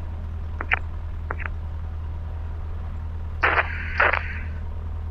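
Cessna 150's four-cylinder Continental O-200 engine idling, heard from inside the cabin as a steady low drone, with a few short clicks and crackles over it, the two loudest close together near the end.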